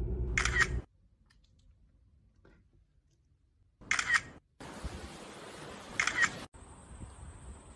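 Smartphone camera shutter sound as selfies are taken, three short clicks: about half a second in, at about four seconds and at about six seconds. A low steady hum sits under the first click, and a steady hiss lies between and after the later ones.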